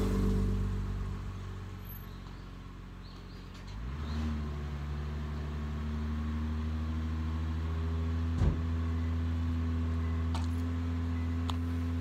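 Toyota Mark X GRX130 250G's 2.5-litre V6 idling. About four seconds in, its pitch rises and it settles into a steady, louder idle. There is one sharp knock near the end.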